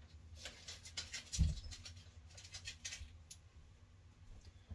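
A dog sniffing and snuffling at the carpet in quick, short, crackly breaths, with a soft low thump about a second and a half in.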